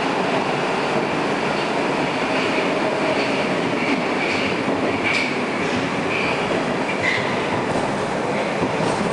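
Steady interior running noise of a Moscow metro 81-760/761 'Oka' train moving through a tunnel, heard from inside the car: an even rumble of wheels on rail and running gear.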